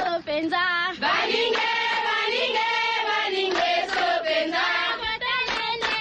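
Recorded African tribal-style chanting: voices singing together with a wavering pitch, a fuller group of voices joining about a second in. It is the sign-off clip the caller asked for.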